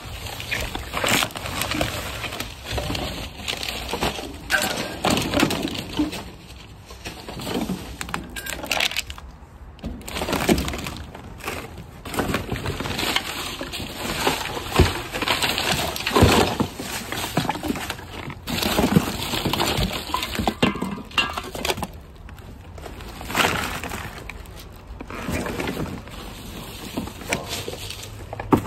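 Rummaging through trash inside a steel dumpster: plastic bags and cardboard boxes rustling and crinkling in irregular bursts, with short knocks and clinks of bottles and containers.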